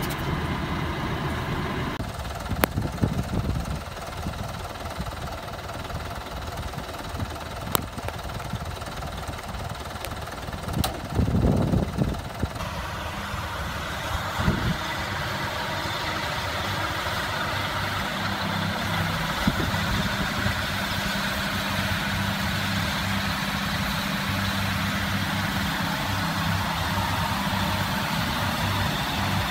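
Massey Ferguson 6290 tractor's diesel engine running while driving a Krone Comprima CF 155 XC baler-wrapper. Close to the baler there are a few sharp knocks and a louder burst about eleven seconds in; after that the tractor and baler run steadily.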